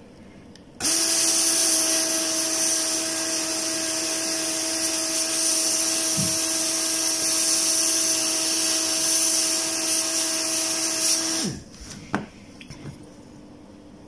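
A small electric blower motor runs with a steady whine over a loud airy hiss. It switches on about a second in and spins down with a falling pitch near the end, followed by a single click.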